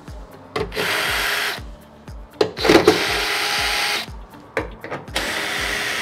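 Cordless drill with a socket bit spinning out a washing machine's transport bolts, in three runs of a second or so each, the motor holding a steady pitch. A few sharp knocks come around the second run.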